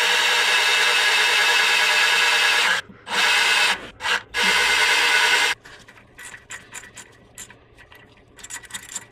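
Milwaukee cordless drill running at a steady speed while making pilot holes at the marked spots, in three runs broken by short pauses about three and four seconds in and stopping about five and a half seconds in. After that, light scratching and clicking.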